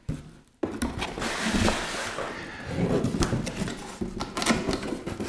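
Cardboard packaging handled: box flaps and a paper spacer rustling and scraping as a boxed unit is slid out, with a few light knocks. It starts about half a second in and keeps going without a break.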